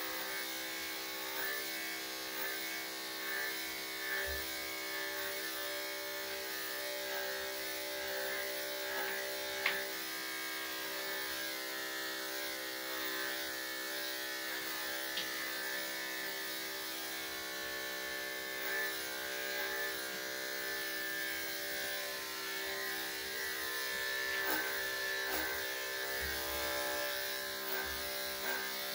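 Electric dog-grooming clippers fitted with a #3/4 blade, running with a steady buzz as they cut through a Cocker Spaniel's coat. There is one sharp click about ten seconds in.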